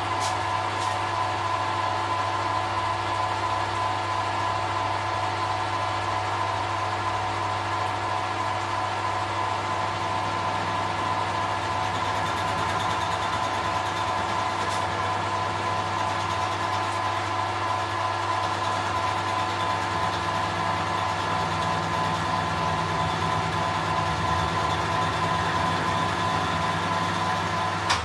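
Metal lathe running with the chuck spinning: a steady motor and gearbox hum with a high whine on top, while the tool takes a facing cut across the end of the workpiece.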